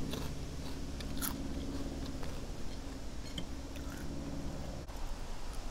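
Close-up chewing and crunching of guacamole chips, with a few sharp crunches through the mouthful. A low steady hum underneath stops near the end.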